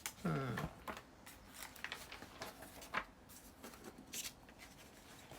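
Paper and card-making supplies being handled and shuffled on a tabletop: scattered light rustles and taps about a second apart, with a short hummed voice just after the start.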